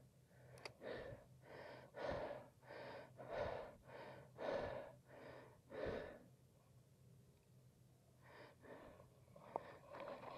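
A person's quick, heavy breathing close to the microphone, a steady run of breaths under a second apart that stops for about two seconds and then starts again, fainter, near the end.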